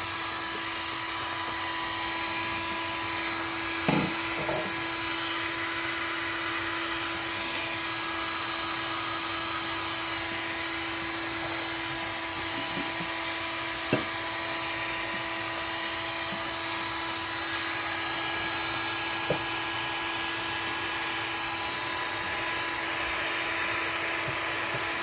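Heat gun running on high: a steady blowing hum with fixed tones, broken by a few light knocks, the loudest about four seconds in.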